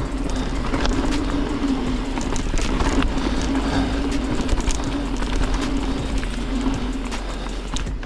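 Rocky Mountain Altitude full-suspension mountain bike rolling fast down a dirt trail. Knobby tyres and drivetrain make a steady buzz that drops out near the end, with frequent clicks and rattles as the bike hits roots and rocks, and a low wind rumble on the handlebar microphone.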